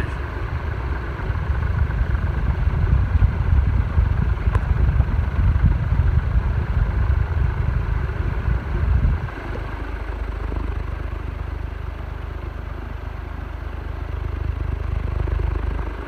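Moss Caribbean Breeze 36-inch ceiling fan running fast, its blades pushing air hard enough to buffet the microphone with a loud, steady low rumble. The rumble turns smoother and a little quieter about nine seconds in.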